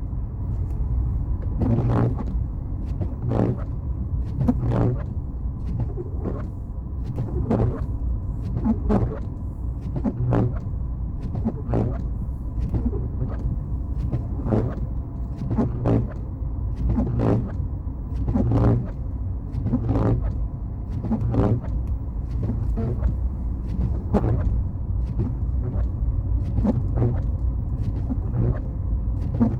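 Car driving on a snowy road: steady low road and engine rumble, with a short knock repeating about every second and a half.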